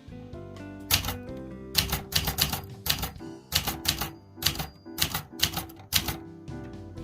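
Keys of a Brother Young Elite manual typewriter being struck in quick irregular runs, each a sharp clack of the typebar hitting the platen, with background music playing underneath.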